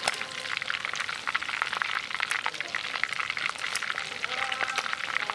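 Quail pieces deep-frying in hot oil in a clay pot: a steady, dense sizzle full of small pops and crackles.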